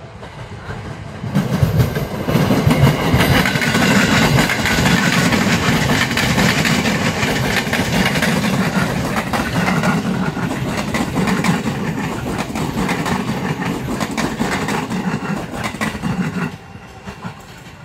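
Electric commuter train passing close by, its wheels clattering over the rail joints. The sound swells about a second in, holds loud, and drops away sharply near the end.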